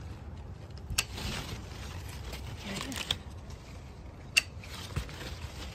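Hand pruning shears snipping guava fruit stems: a few sharp clicks, the loudest a bit over four seconds in, with leaves and branches rustling in between.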